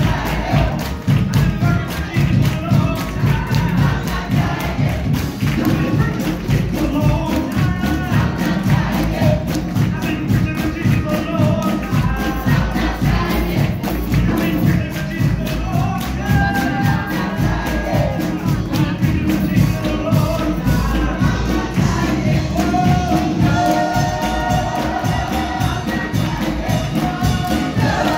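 Choir and congregation singing a gospel-style processional hymn over a steady beat, with hand-clapping in time.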